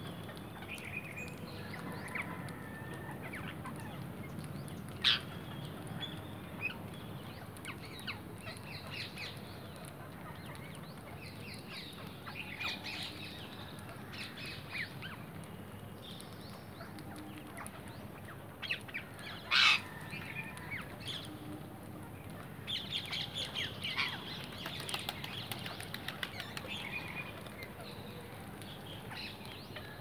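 A feeding flock of rose-ringed parakeets giving scattered short, harsh calls, with now and then a flutter of wings. A few louder calls stand out about five seconds in and about two-thirds of the way through, and the calling grows busier near the end.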